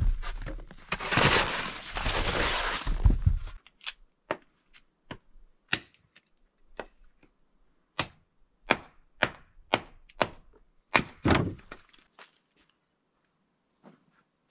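Snow shovel scraping and pushing snow for about three and a half seconds. Then a hatchet chopping firewood on a block: about a dozen sharp wooden knocks at uneven intervals, a second or less apart, stopping about twelve seconds in.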